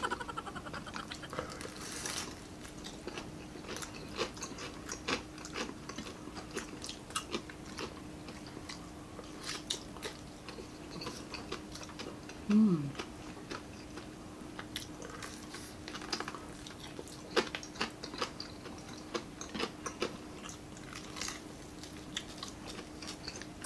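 Close-up chewing and biting of crispy fried chicken, with many scattered small crunches and wet mouth clicks. A faint steady hum runs underneath, and a short falling 'mm' from one of the eaters comes about halfway through.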